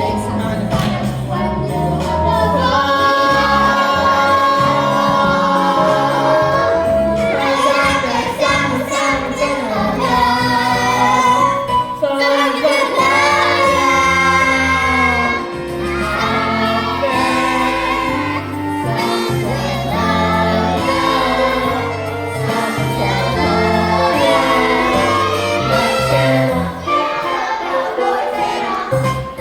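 Young cast singing a musical-theatre number over a recorded backing track.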